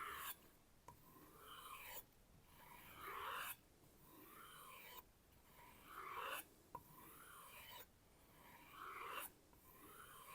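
Nakiri knife blade drawn along a kangaroo-tail leather strop in about seven even strokes, each a soft rub of about a second. These are the final stropping strokes to refine an edge that still feels a little catchy.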